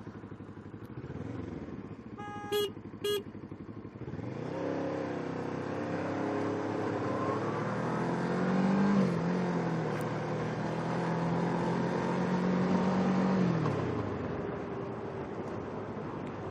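Kawasaki Ninja 650R's parallel-twin engine accelerating hard, its pitch rising for about five seconds, holding steady, then dropping away as the throttle closes near the end, with wind rushing over the microphone. Two short beeps come a few seconds before the acceleration.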